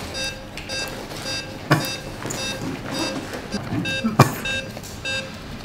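Patient monitor beeping steadily, about two short beeps a second. Two sharp knocks cut across it, one about a second and a half in and a louder one about four seconds in.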